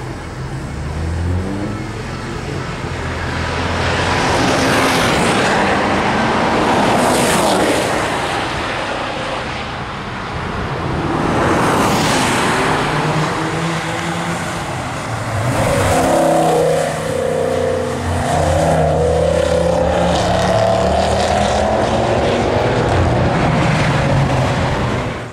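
Track cars passing at speed on a circuit, including the Evotech-tuned Audi RS6: engines revving and several fly-bys that rise and fall in pitch, the clearest pass about twelve seconds in. This is followed by a long stretch of an engine pulling hard under acceleration.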